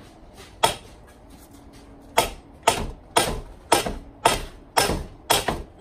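Sledgehammer blows on metal while driving out a driveshaft's U-joint: one blow, then after a short pause steady blows about two a second.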